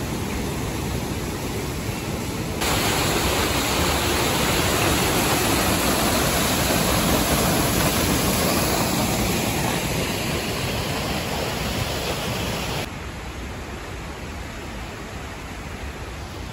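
Waterfall water rushing and splashing over rocks, a steady noise that gets louder about two and a half seconds in and drops back to a fainter rush near the end.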